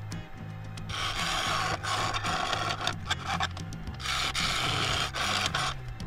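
Rasping rub of a tool against a claret ash bowl spinning on a wood lathe. It comes in strong passes from about a second in, with short breaks between them.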